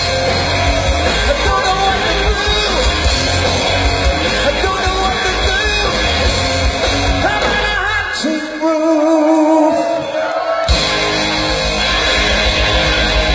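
Live rock band playing loudly behind a lead singer. About eight seconds in, the bass and drums drop out for a couple of seconds under a single held note with vibrato. Then the full band comes back in together with a hit.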